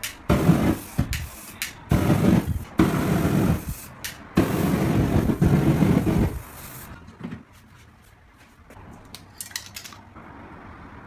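Aerosol spray paint can spraying in four bursts of about a second each, then a few light clicks and taps.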